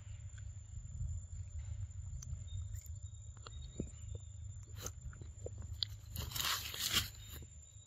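A macaque biting into and chewing a ripe mango, with small wet clicks and crunches and a louder crunch lasting about a second near the end.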